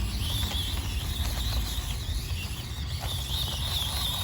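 Axial SCX24 Deadbolt 1/24-scale RC crawler's small electric motor and gears whining, the thin high pitch wavering up and down with the throttle as it crawls, with a few light clicks.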